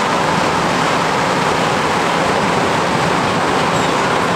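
Inside a moving MR-63 rubber-tyred metro car: the steady, loud running noise of the train in motion.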